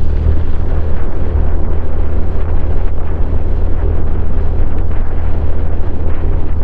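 Honda CRF150L's single-cylinder four-stroke engine running steadily through a Norifumi Noctus T5 aftermarket exhaust, loud, with a heavy low rumble.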